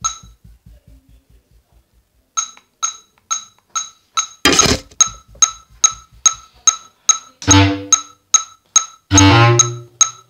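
A steady metronome click ticking at an even beat, a little under three times a second. A brief noisy burst comes about halfway through, and near the end a Yamaha bass clarinet plays two short low notes, the second one longer.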